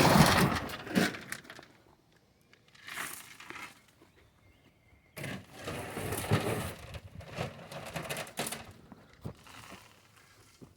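Stone tipped onto a drainage pipe in a trench, rattling and crunching as it falls, in a long burst at the start, a short one about three seconds in, and another long one from about five seconds in.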